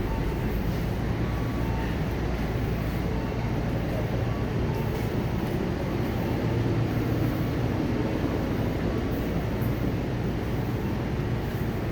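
Steady low rumble and hum of a Tobu Tojo Line commuter train standing stopped at a station.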